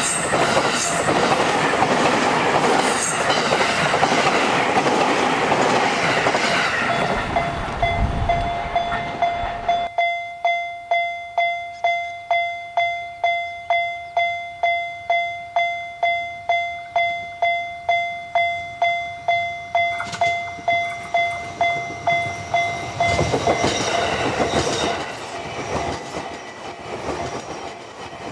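A JR Sobu Line train passes over the level crossing with a loud rumble and wheel clatter. As it clears, the Japanese crossing warning bell rings a steady "kan-kan", about two strokes a second, and stops about two-thirds of the way in.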